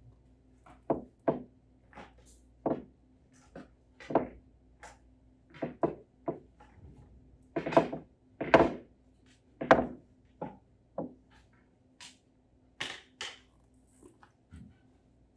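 Billiard balls clacking against one another and knocking on the pool table as they are set out and racked by hand: a string of irregular sharp clicks and knocks, some loud, over a faint steady hum.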